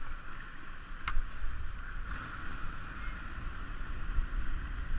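Whitewater rushing around an inflatable kayak running a rapid, with wind buffeting the microphone. A single sharp knock about a second in.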